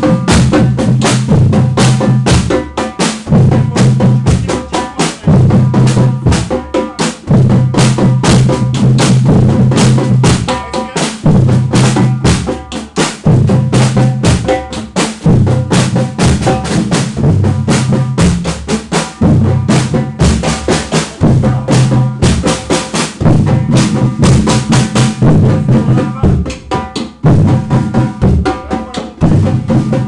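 Brazilian batucada drum ensemble playing together: deep surdo bass drums in phrases that recur every second or two over constant stick strokes on snare-type drums.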